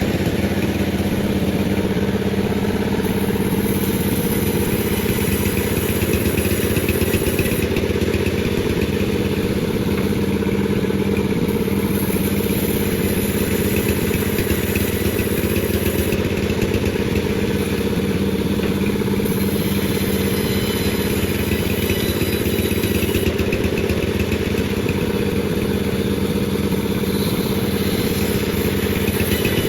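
Panda36 two-stroke chainsaw running steadily at speed as it saws through a durian log, its engine note holding even with no let-up.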